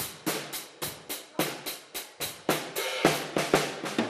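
Acoustic drum kit played with sticks in a steady, simple beat of about four strokes a second, with bass drum kicks from the pedal mixed in; the beat stops near the end and the kit rings out.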